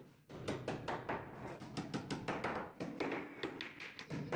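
Hammer tapping on a plywood sofa frame: a quick, uneven run of many light strikes.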